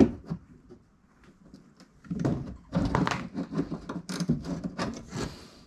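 A sharp knock, then a few seconds of irregular clicking, clattering and rustling as parts and tools are handled around a car's wheel arch.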